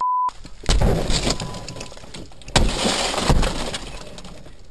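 Sledgehammer blows smashing a police car's windscreen: three heavy crashes with breaking glass, about a second in, then twice more a little past halfway. It opens on the end of a steady beep.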